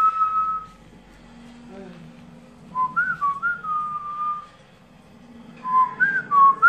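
A person whistling a held note, then a short phrase that rises, dips and ends in a long held note. The phrase comes twice, about three seconds apart.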